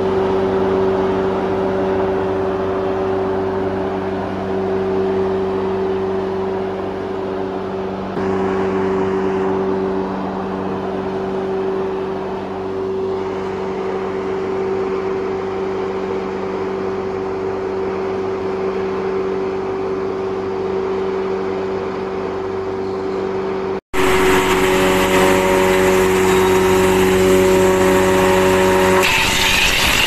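Electric drum wood chipper running with a steady hum and a few steady tones. About 24 s in the sound cuts to a louder, harsher machine run as strips of wood are fed along the conveyor into the cutter, turning rougher near the end.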